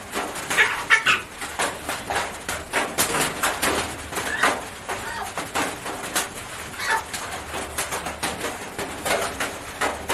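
A chicken giving short calls every few seconds as it is held and dosed with liquid medicine by syringe, amid many small clicks.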